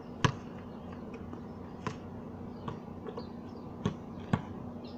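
A basketball bouncing on a concrete court: four or five sharp bounces at uneven intervals, the loudest just after the start and two close together near the end.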